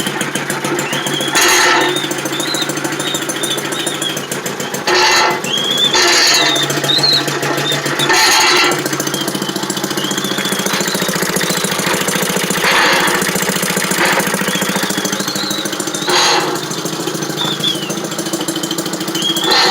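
Maytag 72 DA washing machine running with a steady rapid mechanical beat, rows of short high squeaks, and a louder rushing surge every two to four seconds.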